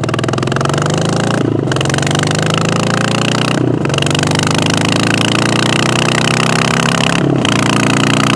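Harley-Davidson Sportster V-twin with a Vance & Hines exhaust accelerating hard, its pitch climbing through the gears. The pitch drops back at three upshifts: about a second and a half in, near four seconds, and about seven seconds in. It is loud because the front exhaust's flange nuts have fallen off.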